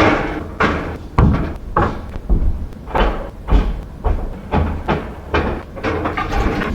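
Repeated loud bangs and clatters of hard objects, about two a second, each with a short ringing tail.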